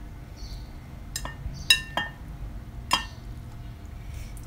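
Metal spoon clinking against a ceramic soup bowl as soup is spooned out, about five short ringing clinks between one and three seconds in.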